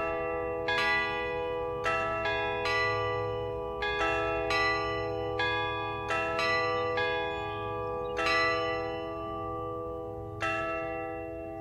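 Church bells ringing: about a dozen strikes at uneven intervals, each note ringing on under the next. The strikes thin out toward the end, with a last one shortly before the close.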